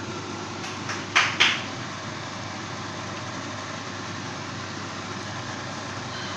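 Steady rushing kitchen noise, with a few sharp clicks about a second in.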